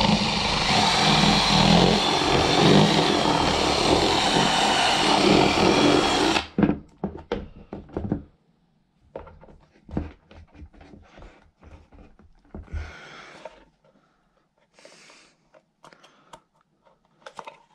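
Cordless drill running, boring into a plastic inline-skate shell to widen a hole. It cuts off abruptly about six seconds in, followed by scattered light clicks and knocks as the skate is handled.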